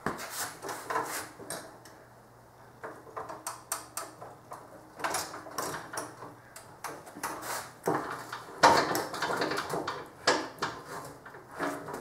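Irregular metallic clunks, clicks and scrapes from work at a drill press fitted with a tapping head over a steel beam, with a faint steady hum beneath. The knocks come thicker and louder from about eight seconds in.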